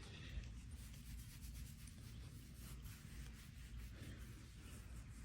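Faint scratching and rubbing with soft clicks over a low steady hum.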